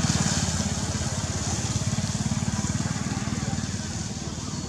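A small engine running steadily with a rapid, even low beat, slowly fading, over a background hiss.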